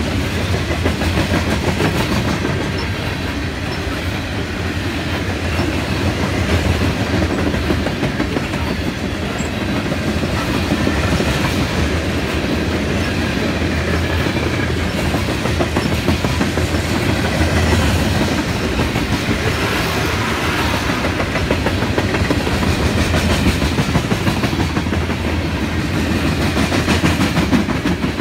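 Loaded coal train's open-top hopper cars rolling past: a steady rumble of steel wheels on the rails with a continuous run of clicks over the rail joints.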